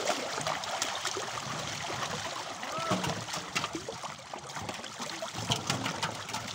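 Water trickling and splashing, with many small splashes and drips scattered through a steady wash of running water.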